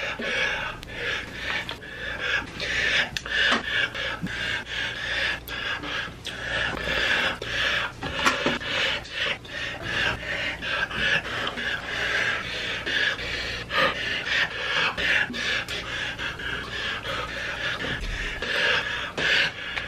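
A man's gasps and panting breaths, edited back to back into a rapid, uneven string of short breathy strokes.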